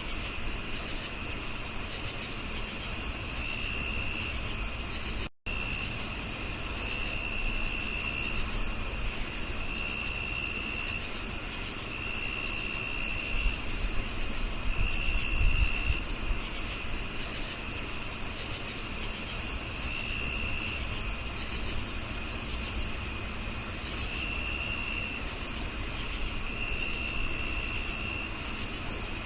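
Crickets chirping in several layers: a steady high trill, a regular chirp about twice a second, and short lower trills about a second long every couple of seconds. The sound cuts out completely for an instant about five seconds in.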